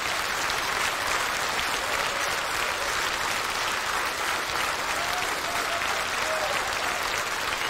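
Large hall audience applauding steadily, a long ovation with a few faint calls from the crowd in the second half.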